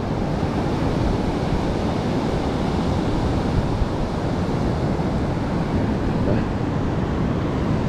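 Heavy surf from a rough sea washing onto the beach as a steady wash of noise, with wind on the microphone.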